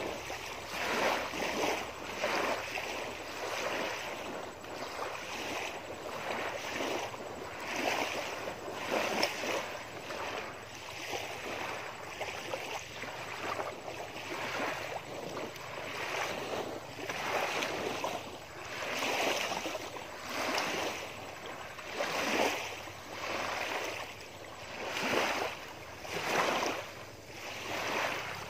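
Small lake waves lapping and washing onto a sandy shore, in repeated swells about one every second or two.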